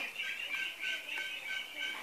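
Ducks quacking in the background, a quick run of short repeated calls about four a second.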